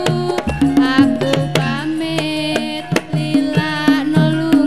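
Music with frequent hand-drum strokes under a melody line that bends and slides in pitch.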